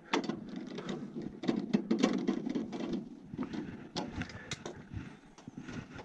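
Irregular clicks, taps and rustling of hands handling wires and a plastic connector inside an open furnace cabinet, busiest in the first half and thinning out toward the end.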